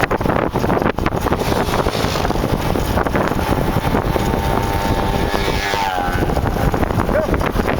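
Wind rushing over the microphone with rolling and rattling noise from a Kawasaki KLX dirt bike coasting with its engine off. A faint tone appears in the middle and drops in pitch about six seconds in.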